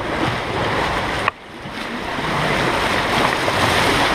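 Rushing, splashing water of a rapids ride channel around a raft. About a second in there is a sharp knock, after which the sound drops away suddenly and builds back up over about a second.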